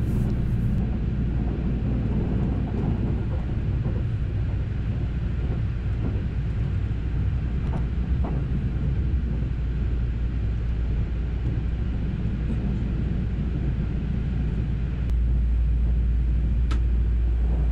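Steady low rumble of a JR West Haruka limited express (281 series electric train) running along the track, heard from inside the Green car. The rumble grows a little louder about fifteen seconds in.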